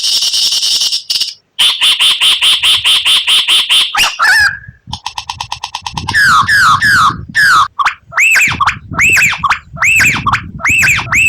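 Songbird song from a murai batu (white-rumped shama) masteran training recording. It opens with a buzzy rattle, then a fast trill of clicking notes and a falling whistle. After that comes a long series of repeated arched whistled notes, about two a second.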